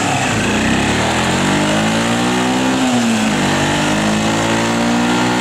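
Arctic Cat Bearcat 454 ATV's single-cylinder four-stroke engine pulling hard and rising in pitch. The pitch drops briefly about three seconds in, then climbs again.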